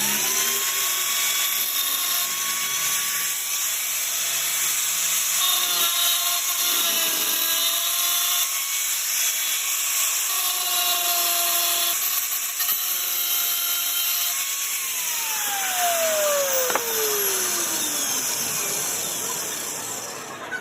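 Electric power tool motor running at a steady speed with a loud hiss of cutting or grinding, then switched off about three-quarters of the way through and winding down in a steadily falling whine.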